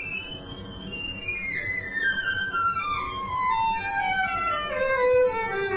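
Background music: a single gliding melody line that rises briefly, then slides down in pitch in one long descending run.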